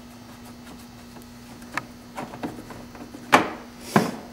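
A few light clicks, then two sharp knocks near the end, from a Torx screwdriver working a screw out of a golf cart's plastic dash panel. A faint steady hum runs underneath.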